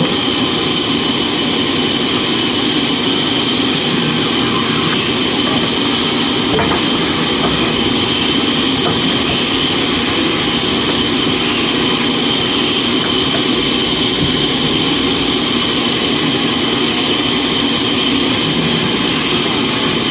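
A machine running steadily and loudly, with a constant high whine over dense noise, the kind of sound a powered woodworking machine makes.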